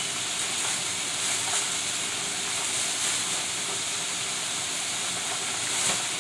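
Cube steak frying in oil in a fryer: a steady sizzling hiss, with a brief crinkle of a plastic bag being handled near the end.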